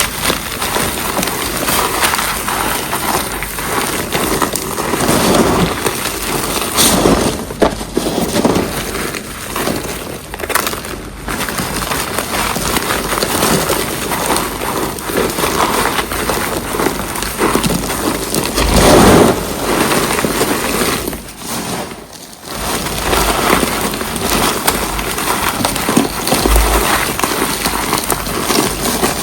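Reformed cornstarch being crushed and crumbled: dense, continuous crunching and crackling, with louder crushes every few seconds and a brief lull about 22 seconds in.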